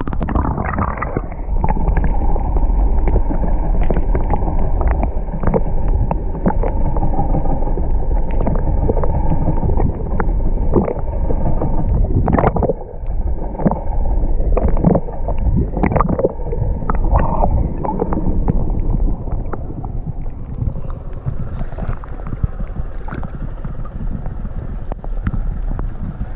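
A small boat on the water: a steady low rumble with wind on the microphone and frequent short knocks, louder for the first twenty seconds or so.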